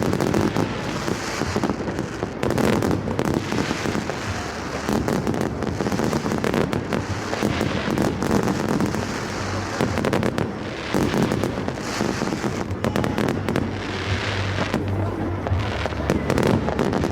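A fireworks display going off without pause: many overlapping bangs and crackles run into one continuous din.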